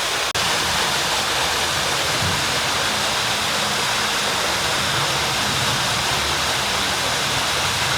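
Waterfall pouring into a rock pool: a steady, even rush of water that drops out for an instant just after the start.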